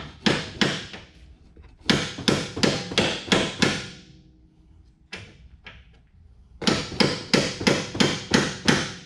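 Hammer blows on the front lower control arm of a 2001 BMW X5, tapping it into place: sharp metal knocks in quick runs of about three a second, with a single blow in the middle.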